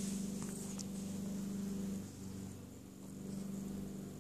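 Tabby kitten purring steadily close to the microphone, the purr swelling and easing with each breath. A few faint licking clicks come in the first second as it grooms.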